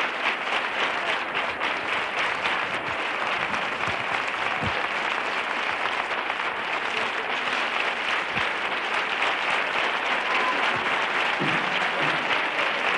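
Large studio audience applauding steadily: a dense, even sound of many hands clapping.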